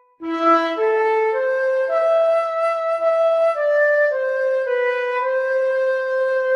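Transverse flute playing a solo melody. It comes in just after a brief silence, moves one note at a time about every half second, and holds a long note in the second half.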